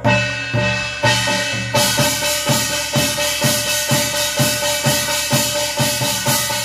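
Korean barrel drum (buk) beaten in a steady beat of about two strokes a second, played with a struck brass gong that rings on between the strokes and grows brighter about two seconds in. This is the drum accompaniment of a shaman's gosa chant.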